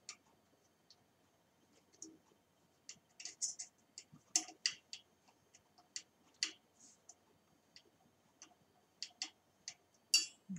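Hex key working the disc brake rotor bolts as they are threaded in: irregular light clicks and ticks, a few a second.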